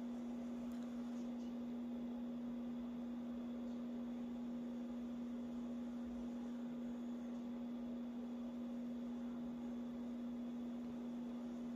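Steady electrical hum: one low, even tone with a fainter higher tone above it, over a faint hiss.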